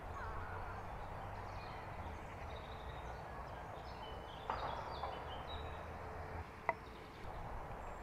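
Open-air ambience: a steady low rumble of wind on the microphone, with a few faint high bird chirps around the middle. There is a brief rustle about halfway through and a single sharp click near the end.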